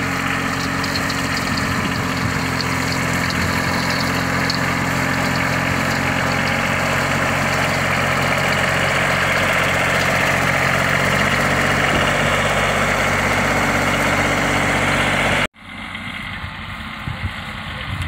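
Kioti compact tractor's diesel engine running steadily under load, heard close up, as it mows tall grass with a rear rotary cutter. About fifteen seconds in, the sound cuts off abruptly and the tractor is heard again, quieter and farther off.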